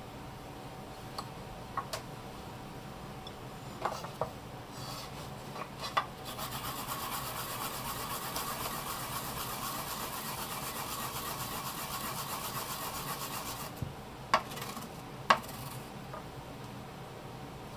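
Fresh wasabi root being grated on a grater: a steady, fine rasping that starts about six seconds in and lasts about seven seconds. A few light clicks of dishes or utensils come before and after it.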